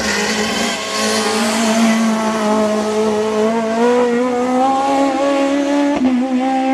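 Peugeot 306 Maxi kit car's two-litre four-cylinder rally engine held at high revs under load, its pitch creeping slowly upward, with a brief break about six seconds in.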